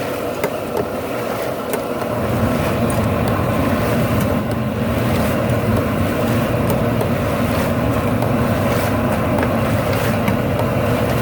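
High-pressure propane burner under a seafood boil pot, a steady rushing rumble that grows a little louder about two seconds in.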